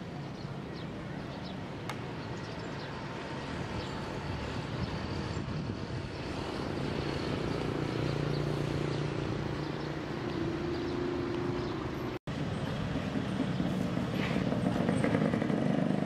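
Street traffic ambience: vehicle engines running nearby, a steady low hum that grows louder in the second half, with a brief break about twelve seconds in.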